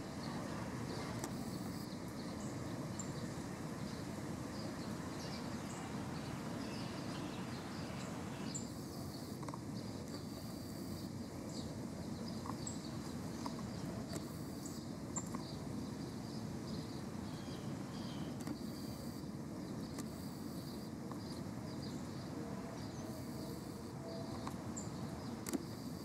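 Steady low outdoor background rumble, with a faint steady high hum and scattered faint bird chirps.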